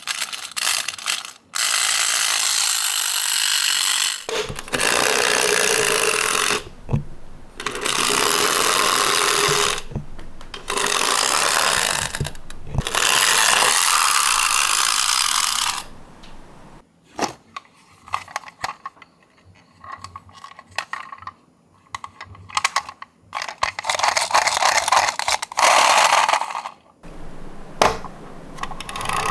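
Die-cast toy cars rolling down a slope track, giving a steady rattling whir in several runs of a few seconds each. In the middle there are scattered clicks and knocks of small cars, and another run comes near the end.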